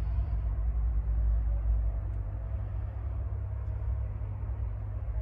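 Diesel engine of a Caterpillar 972M XE wheel loader idling, a steady low rumble.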